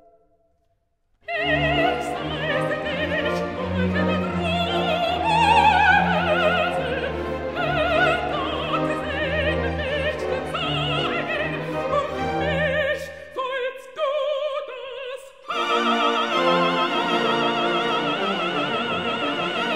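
Operatic soprano singing with a wide vibrato over a full orchestra. It begins after about a second of silence with a loud entry, thins briefly about two-thirds of the way through, then returns with long high notes.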